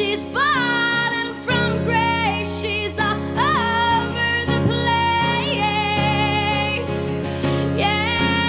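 Slow acoustic pop ballad performed live: a woman singing long, sliding held notes over acoustic guitar chords.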